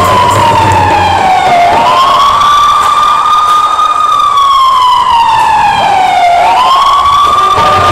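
Police siren sound effect played over a stage sound system: a slow wail whose pitch sinks gradually over a few seconds, then sweeps quickly back up, twice.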